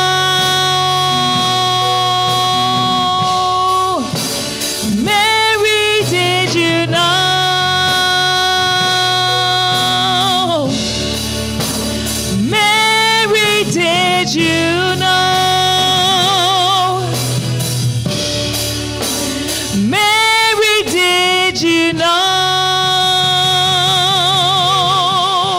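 A woman singing solo over a backing track of sustained low chords: long held notes broken by quick runs of notes, with a wide vibrato on the held notes later on.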